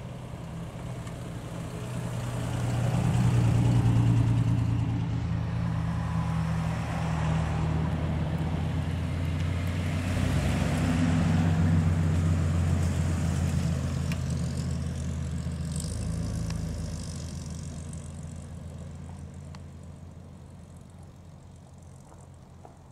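Classic British sports cars, a Triumph TR6, an Austin-Healey and a vintage Bentley-badged roadster, pass slowly one after another with their engines running. The sound is loudest about four seconds in and again around eleven seconds, then fades away as the cars move off.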